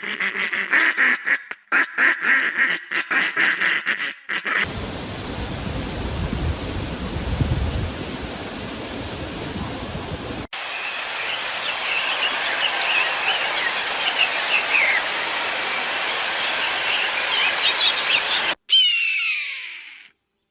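Ducks quacking in quick repeated calls for about four seconds, then outdoor ambience with a low rumble, then small birds chirping. Just before the end, a short falling glide of several tones.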